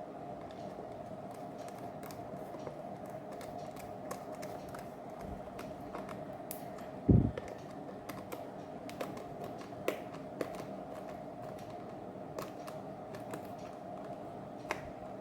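Irregular light clicks and taps of plastic parts being handled as the lid of an aquarium air pump's casing is fitted back on, with one louder knock about seven seconds in, over a steady faint hum.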